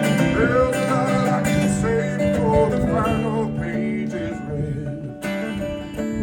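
Acoustic bluegrass-style music with plucked acoustic guitar to the fore, an instrumental passage between sung lines.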